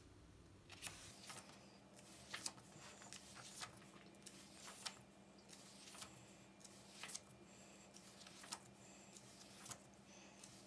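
Paper pages of a softcover book being flipped and turned by hand: a quiet run of short, crisp rustles and flicks, roughly one every second.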